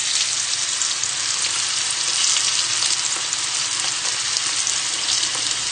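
Steady sizzling of fish frying in hot oil: a batch of whitebait deep-frying in a pan of oil, with cod fillets frying skin-side down.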